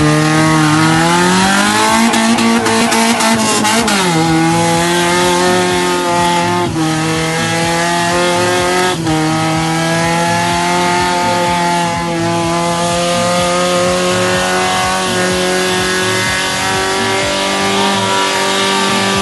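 Honda Civic four-cylinder engine held at high revs during a burnout, with the spinning tyres screeching. The revs climb over the first couple of seconds, dip briefly about four seconds in, then hold steady.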